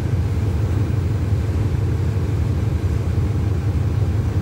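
Diesel locomotive of a stopped passenger train idling with a steady low rumble.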